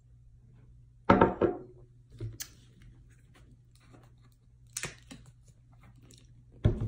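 Tabletop handling sounds as a mug and a plastic syrup bottle are picked up and set down: a couple of loud knocks about a second in, a sharp snap about five seconds in as the bottle's cap is opened, and another knock near the end.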